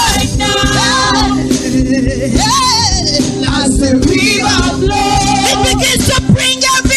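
Gospel choir singing with band accompaniment: melismatic vocal lines over a sustained keyboard chord and bass, with drum hits growing stronger near the end.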